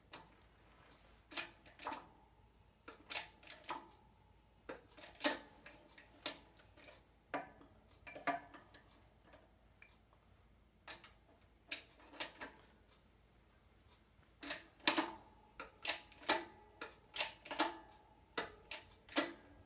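Hydraulic bottle jack in a shop press being pumped by hand, its handle and fittings clacking metal on metal about once or twice a second, with a pause midway and a quicker run near the end. The jack is pressing a new U-joint bearing cup into a drive shaft yoke.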